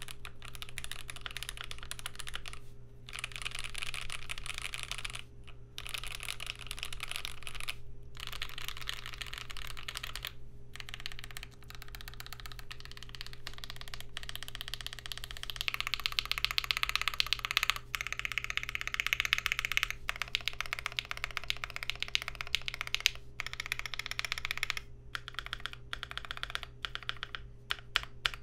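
Continuous typing on a GMMK Pro mechanical keyboard with lubed and filmed Banana Split linear switches on a polycarbonate plate, with GMK keycaps. There are short pauses every few seconds, and the typing gets louder and faster about halfway through.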